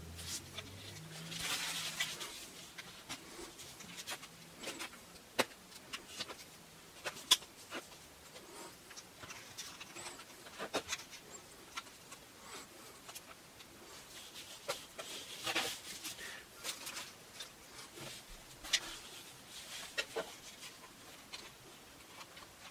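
Wooden canvas keys clicking and tapping against the stretcher-bar frame as they are worked into the corner slots of a stretched canvas. Quiet, scattered clicks a second or more apart, with short spells of soft rustling from handling the canvas.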